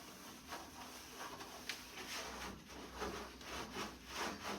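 A sponge scrubbing the inside of a microwave: faint, repeated rubbing strokes that get a little stronger about halfway through.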